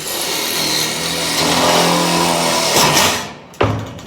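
Milwaukee M12 cordless rivet tool's electric motor running for about three seconds, then cutting off, with a single sharp click about half a second later.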